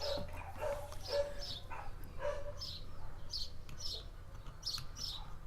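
A bird chirping over and over, short high notes falling in pitch, often in pairs, over a steady low hum.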